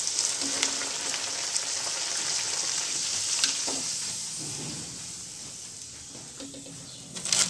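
A puri deep-frying in hot oil in a kadai, sizzling steadily. The sizzle fades over the second half as the puffed puri is lifted out of the oil on a slotted spoon. A few sharp clicks near the end.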